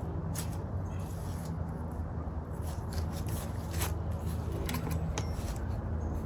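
Scattered light clicks and scrapes from handling the e-bike's rear wheel and frame while removing the wheel, over a steady low hum.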